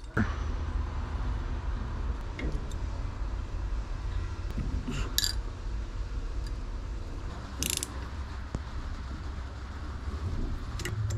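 A steady low hum with a few light metallic clicks and clinks from pump parts being handled and set in place, the clearest about five and eight seconds in.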